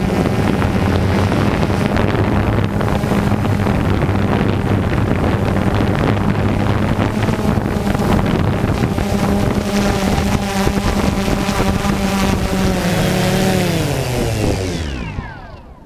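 DJI Phantom quadcopter's electric motors and propellers buzzing steadily in flight. About 13 s in, the pitch slides down as the motors spin down after the drone lands in the grass, and the sound dies away near the end.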